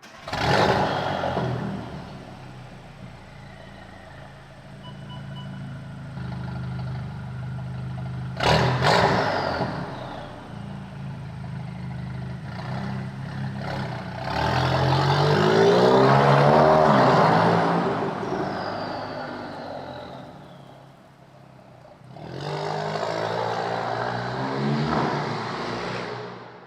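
A GTI's turbocharged engine revving four times, the longest about halfway through, with a high turbo whistle that falls away as the revs drop.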